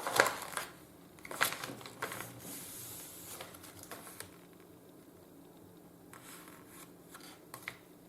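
Paper leaflet being handled and turned over, with short rustles and crinkles, most of them in the first half and fewer and fainter later.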